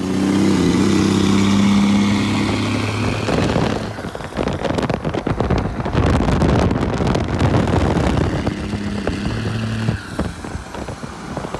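Dodge Ram 2500's Cummins turbo diesel running as the truck drives along the road. It holds a steady drone for the first few seconds, turns rougher and noisier in the middle, and settles back to the drone near the end.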